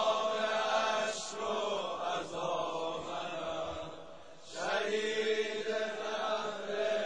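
Persian Shia mourning lament (noha) chanted in long, drawn-out held vocal notes, dipping briefly about four seconds in before the chant swells again.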